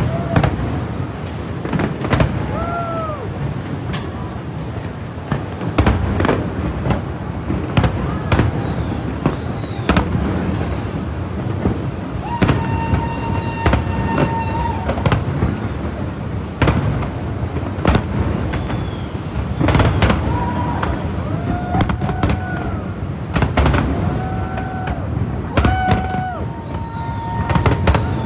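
Aerial fireworks shells bursting in a rapid, continuous run of bangs and crackles. Short whistling tones sound over them at times, and a steady held tone runs for about two seconds roughly halfway through.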